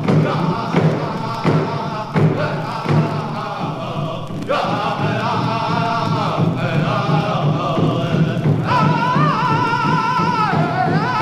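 Background music: a drum beating about once every 0.7 seconds, with singing voices carrying a melody from about four seconds in.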